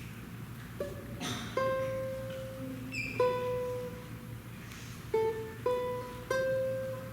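A slow melody of single plucked notes on a guitar-like string instrument, each note starting sharply and ringing out as it fades, over a steady low hum.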